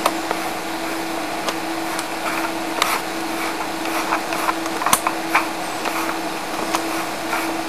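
A steady machine hum on one low pitch with a hiss, dotted with faint scattered clicks.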